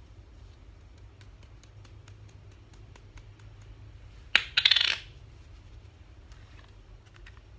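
A small hard object drops and clatters briefly on a hard surface about four and a half seconds in: one sharp click, then about half a second of rattling. Before it comes a run of faint, light ticks, about five a second.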